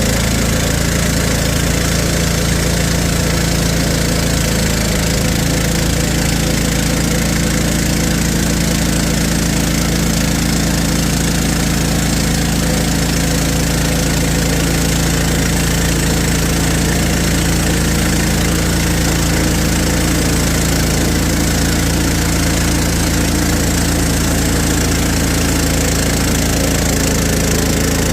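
Gas engine of a Hudson HFE30 portable band sawmill running steadily at an unchanging speed, with a hiss over the engine hum.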